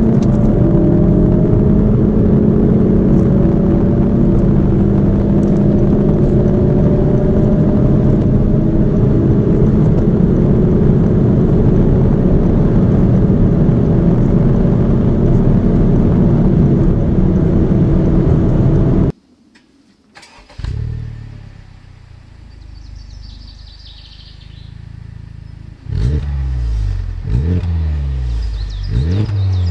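Turbocharged 2.0-litre four-cylinder engine pulling at full throttle at high autobahn speed, heard from inside the car, its pitch climbing slowly for about nineteen seconds before it cuts off. Then a Honda Civic Type R's engine starts and settles to a low idle, and from about twenty-six seconds its triple-outlet exhaust is revved in repeated quick blips.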